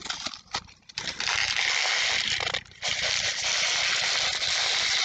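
Steady rustling and scraping from small items being handled close to the microphone, after a few sharp clicks in the first second and with a short break about two and a half seconds in.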